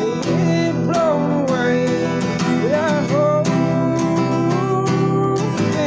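Country song: acoustic guitar strumming chords under a voice singing long, drawn-out notes.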